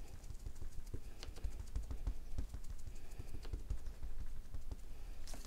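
A small ink pad tapped repeatedly onto a clear rubber stamp on an acrylic block to ink it: a quick, uneven run of light plastic taps and soft knocks, several a second.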